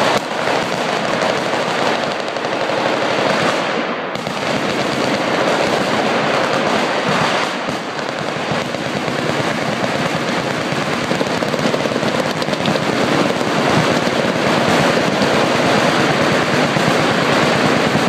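Many machine guns firing at once along a shooting line: a loud, continuous, overlapping clatter of automatic fire with no break.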